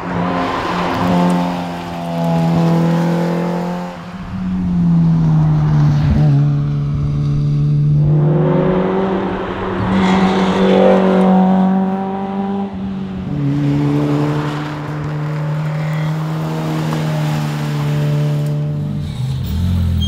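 Lotus Elise 111R's Toyota 2ZZ-GE 1.8-litre four-cylinder engine driven hard, its pitch climbing and dropping several times as the car accelerates and changes gear.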